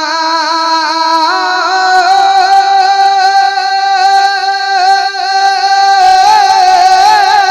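A single male voice singing one long drawn-out note with vibrato in a naat recital, stepping up to a higher pitch about a second in and holding it.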